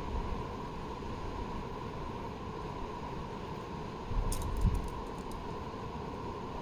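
Steady low outdoor rumble with a faint hum, broken about four seconds in by a brief run of sharp clicks and a thump.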